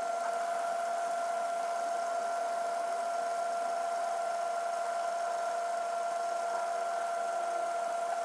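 1936 Atlas 12-inch metal lathe running steadily, with a steady whine from its drive, while taking a light turning pass of about ten thousandths on a steel part.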